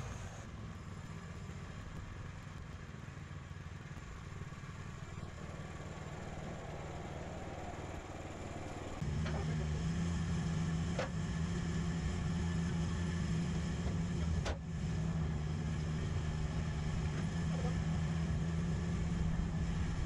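Woodland Mills HM126 portable sawmill's gasoline engine running steadily. About halfway through it gets louder, with a steady low hum, and a few sharp knocks sound over it.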